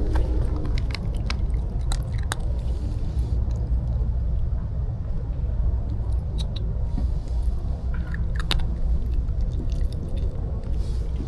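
Low rumble of wind buffeting the microphone, with scattered light clicks and taps over it.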